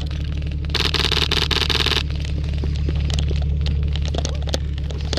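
A burst of rapid full-auto airsoft fire about a second long, starting just under a second in, then scattered single cracks and pops over a steady low rumble.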